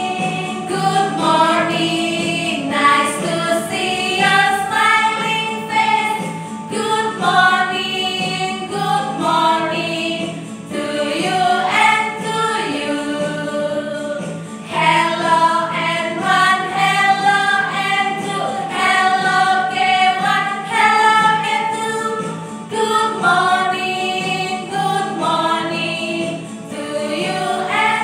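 A group of women singing a children's song together in unison, with electronic keyboard accompaniment.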